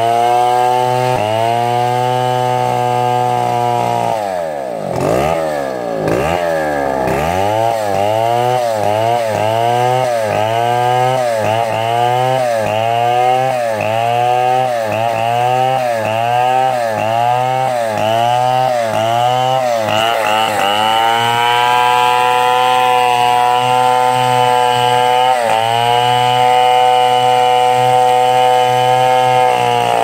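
Two-stroke Stihl chainsaw cutting through a palm log at high revs. The revs drop twice a few seconds in, then rise and fall rhythmically about one and a half times a second for a stretch, before holding steady and high. They fall off at the very end.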